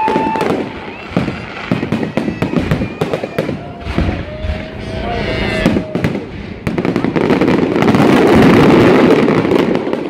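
Aerial fireworks bursting overhead: a quick string of bangs and crackles, building to a dense, loud crackling over the last few seconds.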